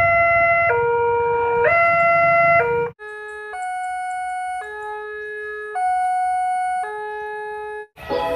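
Electronic level-crossing warning alarms sound a two-tone chime that alternates pitch about once a second. About 3 s in, the sound cuts abruptly to a second crossing's alarm, quieter and with a different pair of tones. Near the end there is another abrupt cut.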